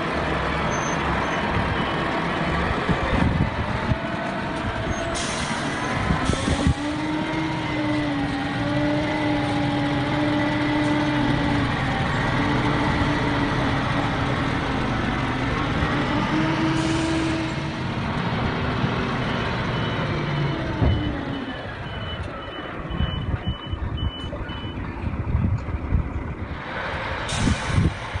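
Heavy truck or machinery engine running steadily, with a reversing alarm beeping about twice a second in the second half and a few short sharp noises along the way.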